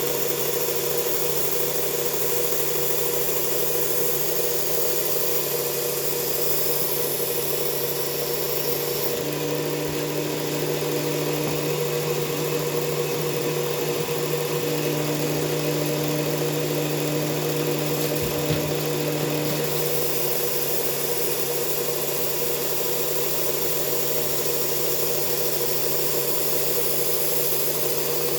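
Electric belt sander running steadily with a coarse belt while a knife is sharpened on it. Its sound changes for about ten seconds in the middle.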